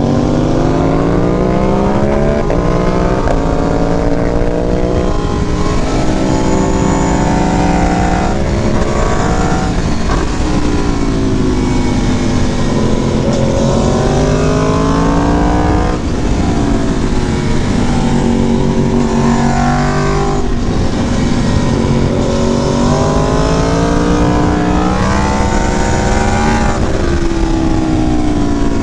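Aprilia Tuono V4 Factory motorcycle with a Leo Vince exhaust under hard riding: the engine revs climb and fall again and again through the gears, with steady wind rush over it.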